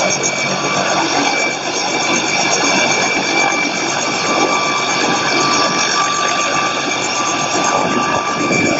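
Light helicopter running on the ground with its main rotor turning slowly: a steady high whine over a dense, rough rumble.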